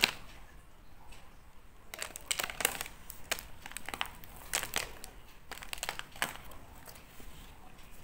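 Paper wrapping crinkling and rustling in a series of sharp crackles as a cheese-topped donut is handled, busiest through the middle and thinning out near the end.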